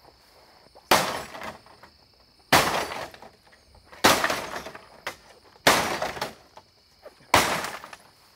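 Five hard blows smashing an old television, each a loud crash of breaking glass and debris that dies away within about half a second. The blows come roughly every one and a half seconds.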